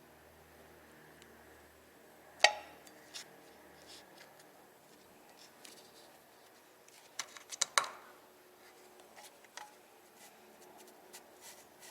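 Scattered metal clicks and clanks from setting a jack stand under the car. One sharp knock with a short ring comes about two and a half seconds in, and a quick run of clicks comes near eight seconds.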